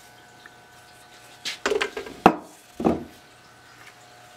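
A rehung axe laid down on a wooden workbench: a short clatter and knocks of its steel head and wooden handle on the wood, with a sharp knock about halfway through and a last one soon after.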